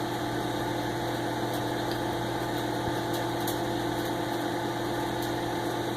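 Microwave oven running with a steady, unchanging hum.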